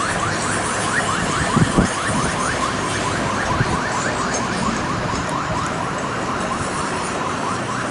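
Wind noise on the microphone over a distant siren yelping, a rapid warble of about five rising sweeps a second that fades out past the middle. A couple of low thumps come about a second and a half in.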